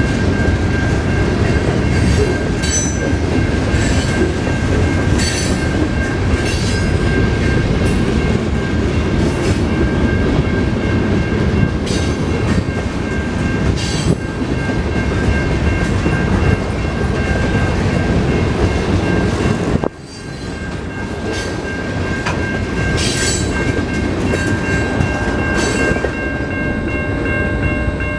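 Freight train cars rolling past over a road crossing: a steady rumble with sharp clacks of wheels over rail joints, and a crossing bell ringing steadily above it. About twenty seconds in, the last car passes and the rumble falls away, leaving the crossing bell ringing.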